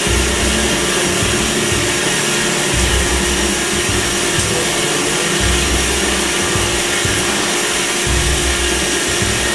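Band saw machine running: a steady motor and blade noise with a constant hum, and a low rumble that comes and goes every second or two.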